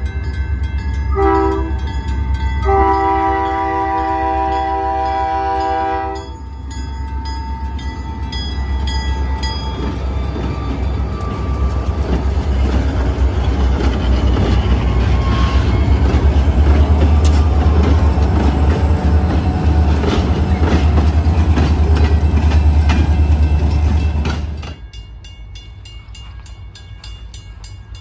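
Diesel freight locomotive horn sounding the grade-crossing warning: the end of a long blast, a short blast, then a long blast that stops about six seconds in. The lead locomotive then passes close by with a loud, steady diesel engine drone and wheels clicking over the rail joints, until the sound drops away suddenly near the end.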